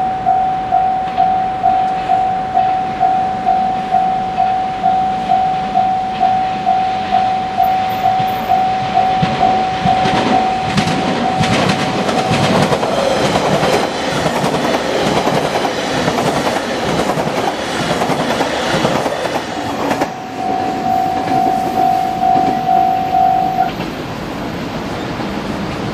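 Japanese level-crossing alarm ringing in even electronic strokes, about one and a half a second. A train passes over the crossing from about ten seconds in, its wheels clattering over the rail joints and drowning out the alarm. The alarm is heard again after the train and stops a couple of seconds before the end.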